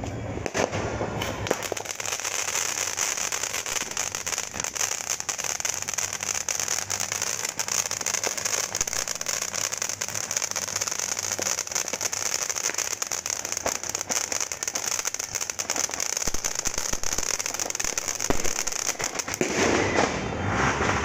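Dragon Fireworks Fortune Fountain, a crackling ground fountain firework, burning with a steady hiss and dense, rapid crackling. It starts about a second and a half in.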